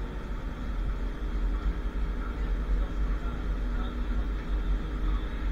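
Historic tram running along its tracks: a steady low rumble with an even running hiss over it, and no distinct knocks or signals.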